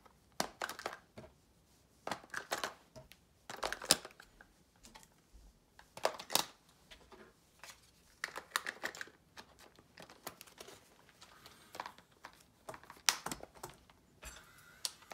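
Handling noise from a plush toy dragon's plastic body shell: irregular clicks, knocks and rustles of fur and plastic as it is turned and gripped in the hands.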